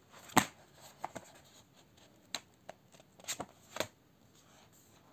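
Paperback book pages flipped and riffled by hand: a string of short, sharp papery snaps, the loudest about half a second in, with a cluster near the end.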